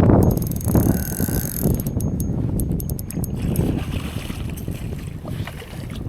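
Wind buffeting the microphone, heaviest at the start and easing off, with a quick run of sharp clicks about two seconds in.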